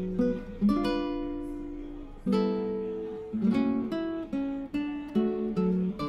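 Background music: an acoustic guitar playing plucked and strummed chords, each ringing and fading before the next.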